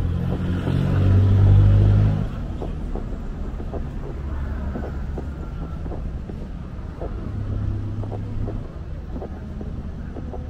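Road traffic: a vehicle engine passes close by and loud during the first two seconds, then a steady lower traffic rumble continues, with another vehicle swelling briefly near the end.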